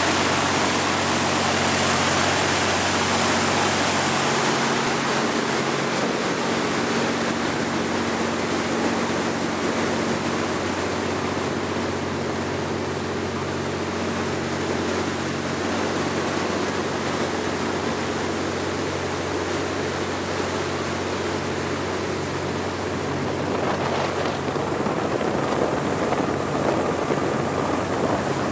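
Steady rush of water and spray from a fast-running boat's hull and wake, over the steady drone of its twin Caterpillar C-32 ACERT diesel engines. A thin high tone joins near the end.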